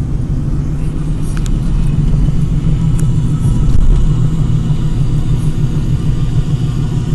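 Car road and engine noise heard inside the cabin while driving: a steady low rumble, with a couple of faint clicks about a second and a half and three seconds in.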